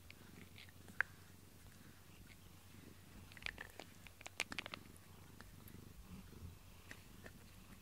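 Domestic cat purring steadily and quietly, close to the microphone. A sharp click comes about a second in, and a quick run of small clicks follows around the middle.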